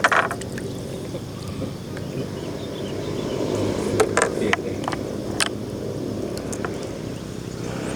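A motor engine running steadily, with a few sharp clicks about four to five and a half seconds in.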